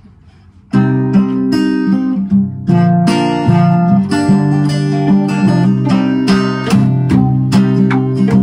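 Acoustic guitar strummed in chords, starting abruptly about a second in: the instrumental opening of an English folk song.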